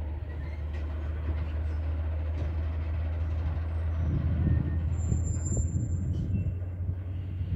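Freight train moving on the track: a steady low rumble that grows a little louder partway through, with a brief thin high squeal about two-thirds of the way in.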